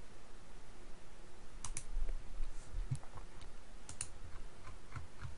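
A few faint, scattered computer keyboard clicks over a low background hiss.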